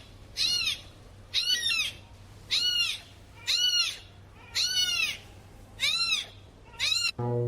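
An animal calling over and over in high, pitched calls that rise and fall, about one a second, seven times.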